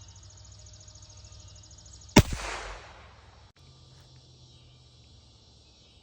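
A single suppressed shot from a LifeCard .22 single-shot pistol about two seconds in: one sharp crack with a short tail that dies away within about half a second.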